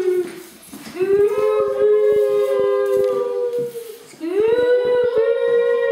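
Children's voices wailing long, steady 'oooo' calls through cardboard tubes to frighten a dog. Two drawn-out calls of about three seconds each, the second starting about four seconds in.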